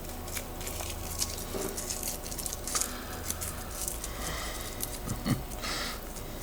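Light clicks, taps and short scrapes of a memory module and its metal heat spreader being handled with a screwdriver, over a low steady hum.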